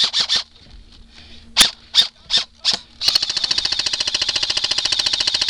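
Airsoft guns firing: several separate single shots in the first three seconds, then a sustained full-auto burst of nearly three seconds, a rapid even stream of shots that stops abruptly.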